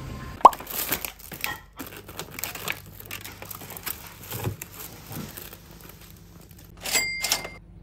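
Thin plastic carrier bag and cling film rustling and crinkling as a wrapped takeout bowl is handled and lifted out, in irregular bursts. A sharp click comes about half a second in, and a louder crinkle with a brief high ringing tone comes near the end.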